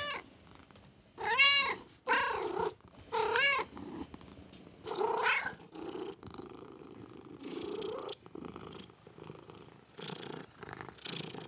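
Domestic tabby cat crying in short calls that rise and fall in pitch, four of them in the first half, then purring softly and continuously.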